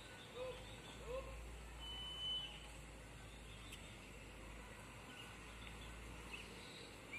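Faint outdoor ambience with a few short, distant bird calls in the first second or so and a brief thin whistle a little later, over a low rumble.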